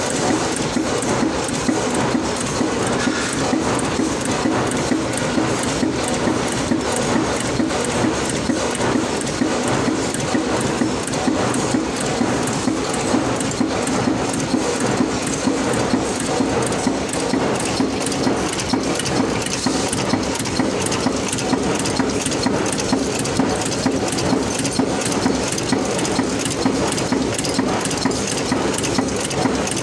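Taiwan-made nut former (cold-forging nut-making machine) running steadily: a fast, even clatter over a steady hum.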